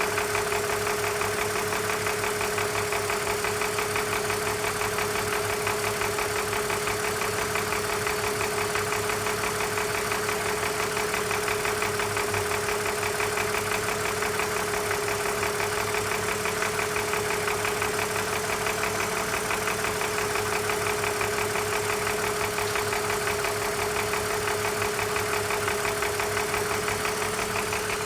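BMW M54 straight-six engine idling steadily, with a light, rapid ticking knock running through it and a steady whine alongside; the cause of the ticking is unknown to the owner.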